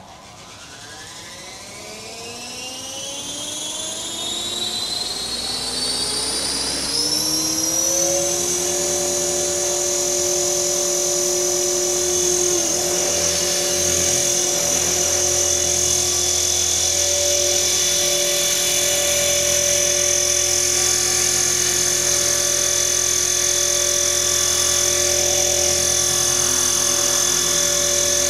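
Align T-Rex 450 XL electric RC helicopter spooling up: its motor and rotor whine rises in pitch and loudness over the first eight seconds or so. It then holds a steady high whine at flight speed.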